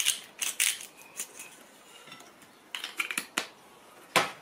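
Salt shaken from a plastic salt container over a bowl: several short bursts of rattling clicks, with a louder knock near the end.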